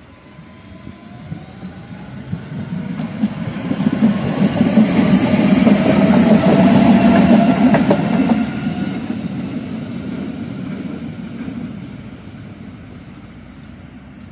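A Budapest Tatra T5C5 two-car tram approaching and passing close by: its rumble builds to a peak about seven seconds in and then fades as it pulls away. A rising electric whine comes from the traction equipment, and the wheels give a short run of clacks over the rail joints as it goes by.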